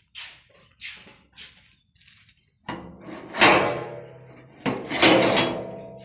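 Metal gate and its lock being worked, with two loud metallic clangs about a second and a half apart that ring on and fade.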